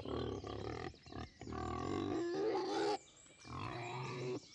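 Animal calls in several pitched bouts broken by short pauses, the longest pause about three seconds in.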